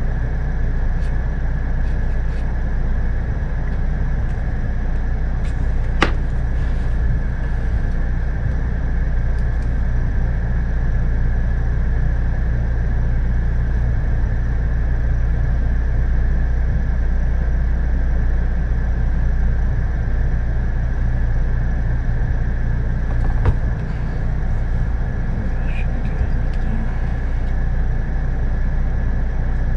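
Steady low machine drone with a faint, even high whine over it, broken by a couple of sharp clicks, one about six seconds in and another near the end.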